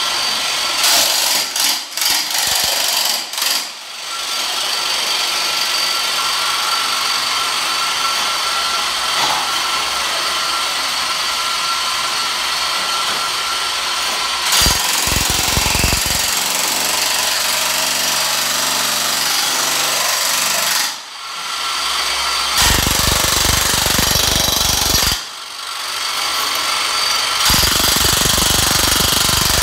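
Makita electric demolition hammer on a wheeled tile-stripper cart, running and chipping Saltillo tile and mortar off the floor with a wide chisel blade. It stops briefly twice in the last third.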